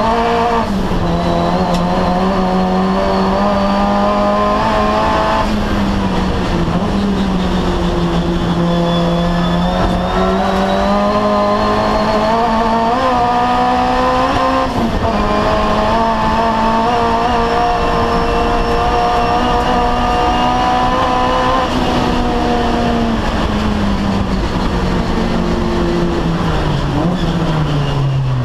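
Turbocharged 4G15 four-cylinder engine of a Mitsubishi Colt Ralliart race car, heard from inside the cabin. It runs hard at full throttle under boost in third gear, its pitch rising and dipping slightly. Over the last few seconds the revs fall as the car brakes.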